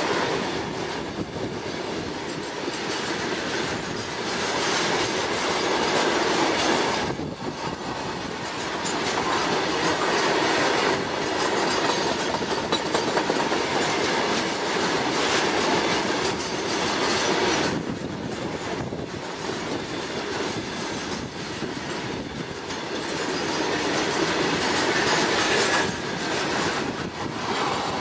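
Long rake of high-sided open freight wagons of an electric-hauled goods train rolling past close by: a continuous rolling rumble of steel wheels on rail that swells and dips every few seconds as the wagons go by.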